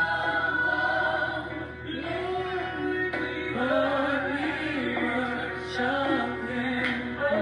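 Gospel praise-and-worship song playing, with a woman singing along with it.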